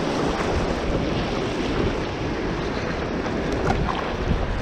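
Wind buffeting the microphone over rushing water as a stand-up paddleboard rides a wave in.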